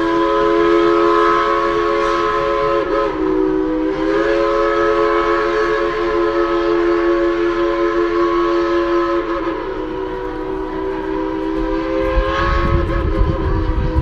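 Train horn sounding one long chord of several notes, with two brief wavers about three and nine seconds in. A low rumble comes in under it about twelve seconds in.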